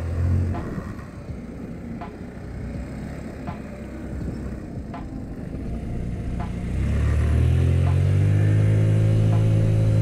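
Honda Elite 80 (CH80) scooter's single-cylinder engine running while riding, with wind rushing on the microphone. About seven seconds in the throttle opens and the engine note rises a little and holds, louder. A faint tick repeats about every second and a half.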